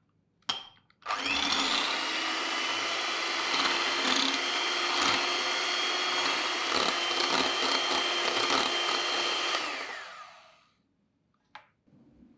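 Electric hand mixer whipping fresh cream in a glass bowl: a steady motor whine with scattered sharp clicks. It starts about a second in and dies away about ten seconds in.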